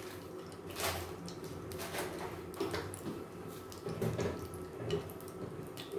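Mustard seeds and cumin frying in hot oil for a tempering, crackling with scattered sharp pops and clicks.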